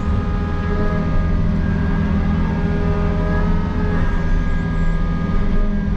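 Takeuchi excavator's diesel engine and hydraulics running steadily under load, heard from inside the cab as the bucket digs into dirt.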